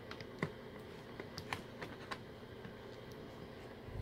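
Scattered light plastic clicks and taps from a finger working the latch tab on the Red by Kiss 1875 hood dryer's plastic hood.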